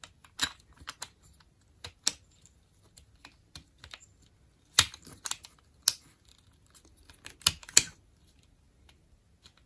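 Hard plastic parts of a Transformers Kingdom Warpath toy clicking as they are pressed and pegged into place, locking the tank mode together. Irregular sharp clicks, loudest about five seconds in and twice in quick succession near eight seconds.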